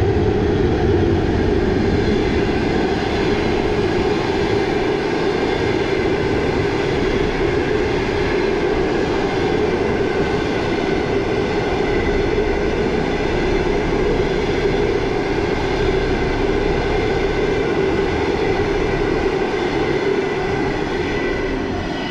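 A 2ES4K electric locomotive and a long passenger train passing close by, a steady rolling noise of wheels on rail throughout, with more low rumble in the first second as the locomotive goes past.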